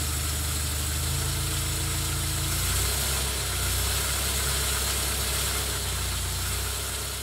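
1931 Standard Big Nine's four-cylinder side-valve engine idling steadily, its note shifting slightly a little under three seconds in. Its tappets have been freshly adjusted, and it runs without the earlier tappet rattle.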